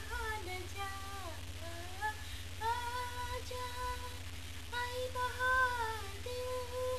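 A voice singing a slow tune in long, held notes, with a short break a little after halfway, over a steady low hum.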